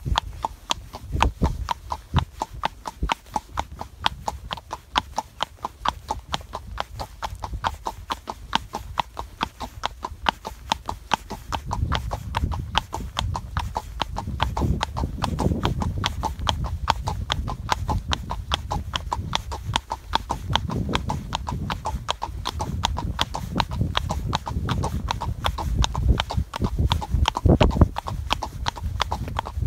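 Horse's hooves clip-clopping on a paved path in a steady, even rhythm of several footfalls a second, as the horse is ridden at a gaited walk. A low rumble joins the hoofbeats from about twelve seconds in.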